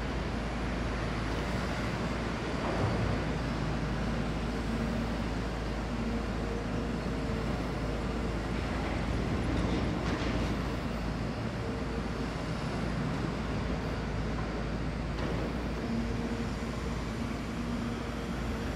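Caterpillar 340F long reach excavator's diesel engine and hydraulics running steadily while it works, with a faint whine that comes and goes.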